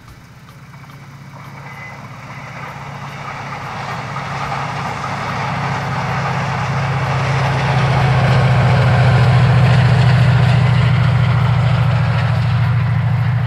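Class 68 diesel locomotive on a TransPennine train approaching, its steady engine note and rumble growing louder over about nine seconds and easing a little near the end.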